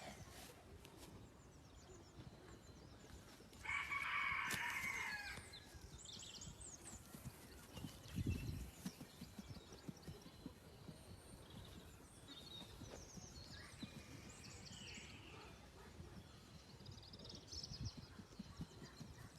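A bird calling once, loudly, for about a second and a half, about four seconds in, with faint high chirps scattered afterwards and a dull low thump about eight seconds in.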